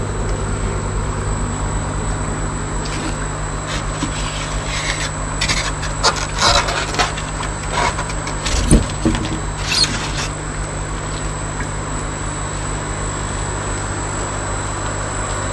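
Steady hum of the fish-tank aeration air-pump motors. From about three to ten seconds in, a cluster of scrapes and knocks comes as a foam lid is moved over a tank, with one dull thump near the middle.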